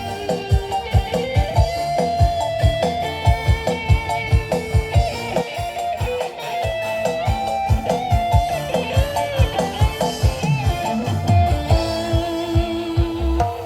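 Instrumental music played loud over a line array and subwoofer sound system: a bending lead guitar melody over a fast, steady, heavy kick drum.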